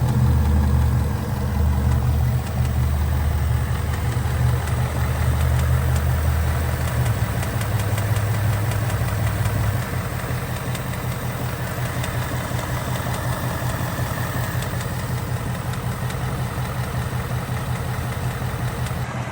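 A Ford Mustang GT's Coyote V8 idling with a fast, steady ticking from the engine. A mechanic suspects a rocker arm or timing chain guide rather than the normal Coyote tick. The deep low rumble eases about halfway through.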